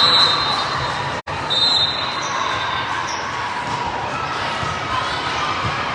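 Gym game noise during a youth volleyball match: steady crowd chatter in a large hall, with ball hits and a short high squeak about a second and a half in.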